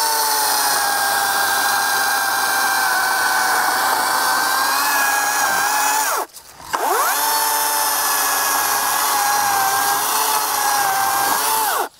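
EGO 16-inch battery-powered chainsaw run twice at full speed to cut a maple log, about six seconds each time. Each run spins up with a quick rising whine, holds a steady high electric-motor whine with the chain rasping through the wood, and winds down with a falling whine. A short pause falls about halfway through.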